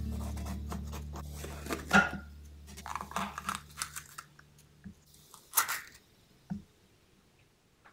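Chef's knife cutting through a raw green bell pepper with a sharp crunch about two seconds in, followed by crisp cracking and tearing as the pepper flesh is pulled apart by hand and the seed core snapped out.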